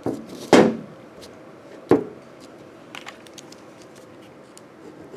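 Hand tools being handled on a bench: a heavy knock about half a second in and a sharp click near two seconds, then faint small clicks and rustling.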